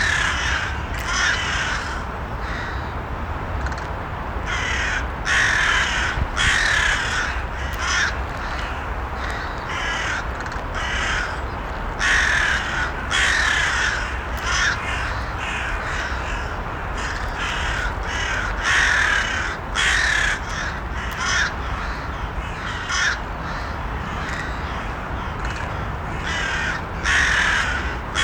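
Crows cawing, many harsh calls in irregular runs, over a steady low rumble of background noise.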